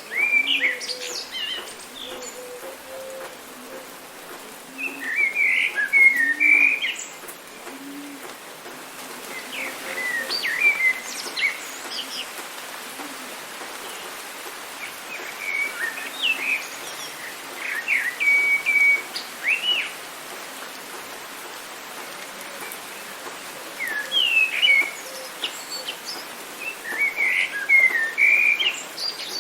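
Songbirds singing in clusters of short, chirping phrases every few seconds over a steady hiss of rain and running water, with a faint low call repeating in the first several seconds.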